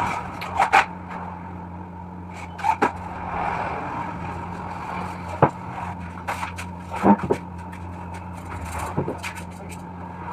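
Scattered sharp knocks and scrapes, like boards and tools being handled during carpentry work, over a steady low hum.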